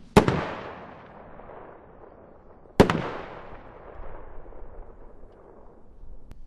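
Double-break firework rocket bursting in the air: two sharp bangs about two and a half seconds apart, the second a quick double report, each trailing off in a long fading echo.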